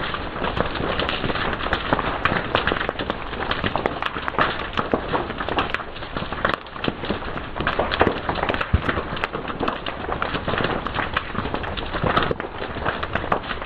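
Fire crackling and popping, a dense run of irregular sharp snaps over a steady hiss.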